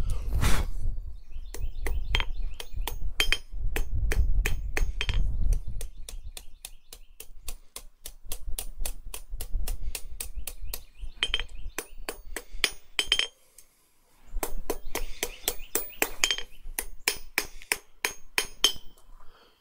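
Blacksmith's hand hammer striking a hot steel bar on an anvil in quick, steady blows, about four a second, some ringing, as the bar's corners are knocked off to draw the end from square to round. The hammering stops briefly about 13 seconds in, then resumes.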